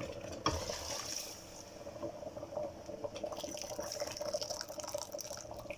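Hot water poured into a steel pot of semolina roasted in ghee with brown sugar, for suji halwa. The water bubbles and crackles against the hot mix in a fine, continuous texture of small pops.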